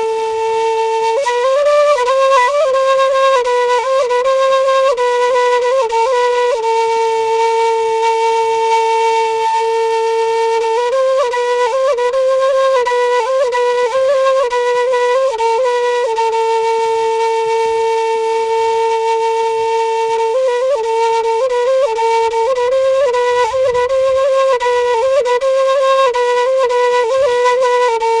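Solo end-blown flute playing a traditional Kurdish melody. Ornamented phrases alternate with long held low notes, over a breathy hiss of the player's breath.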